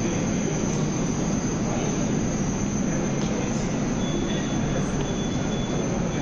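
Moscow Metro train running, a steady rumble of wheels on rails. A thin, high wheel squeal comes in about four seconds in.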